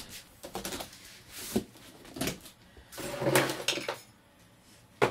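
A person moving about and handling a hard bayan case: rustling, shuffling and scraping, loudest about three seconds in, with a sharp knock near the end.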